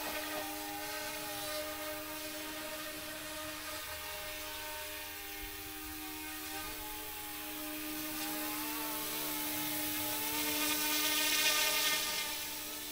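RC scale AH-64 Apache helicopter's electric motor and rotors running with a steady whine whose pitch shifts slightly. A hissing rush grows louder from about ten seconds in, then drops back near the end.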